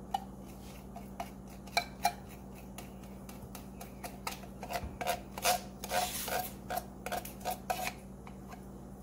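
Metal spoon scraping and tapping inside a tin can of sweetened condensed milk, getting the last of it out. Irregular clicks with a short metallic ring, sparse at first, then coming thick and fast from about four seconds in until near the end.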